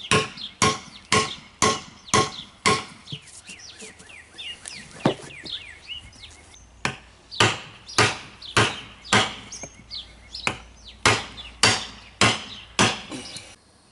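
Repeated hammer blows, about two a second, pounding a lawn tractor's tubeless tire bead down onto its rim. A run of six strikes is followed by a pause with a single blow, then a longer run of about ten more.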